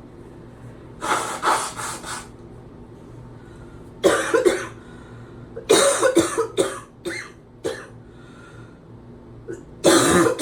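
A person's deep, barking coughs in the shower, in bouts: a short run about a second in, another near four seconds, a longer string of coughs around six to eight seconds, and one more at the end. The person is coughing hard to clear congestion from the chest.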